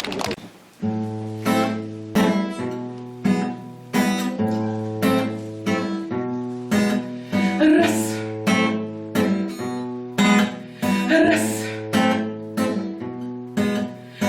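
Acoustic guitar strummed in a steady rhythm, about two strums a second, starting about a second in: the instrumental introduction to a song.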